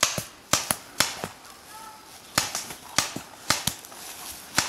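Paintball markers firing: about a dozen sharp pops, many in quick pairs, at an uneven pace.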